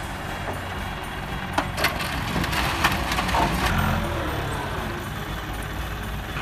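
International Harvester 60-horsepower farm tractor's engine running as the tractor rolls down the trailer ramps and drives off on chained tires, with a few sharp clanks about one and a half to three seconds in.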